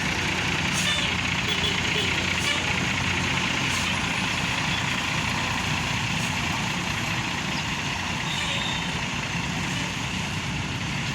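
Bus engine running steadily with a constant low hum, with no horn sounding.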